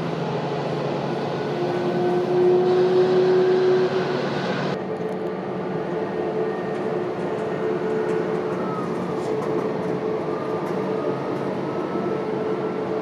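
Taxiing jet airliners' turbofan engines: a steady rumbling hiss with a steady whine, swelling a little in the first few seconds. About five seconds in the sound changes abruptly to a duller, steady engine whine from a taxiing Airbus A320neo.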